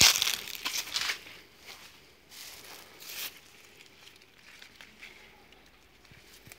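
Rustling of walnut leaves brushing close against the microphone, in a few loud crackly bursts, the loudest in the first second and two shorter ones a couple of seconds later.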